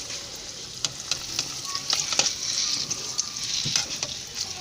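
Donut dough deep-frying in hot oil: a steady high sizzle with scattered sharp pops and crackles.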